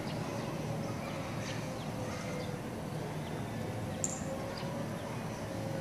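Steady outdoor background noise with a faint steady hum, scattered faint short chirps and a small click about four seconds in; no clear sound from the bear itself.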